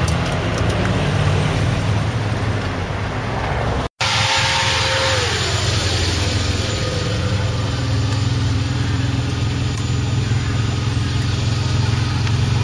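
Ferrari engines running steadily at low revs as cars roll slowly past; after a cut about four seconds in, a silver Ferrari 456 GT's 5.5-litre V12 with a low, even note.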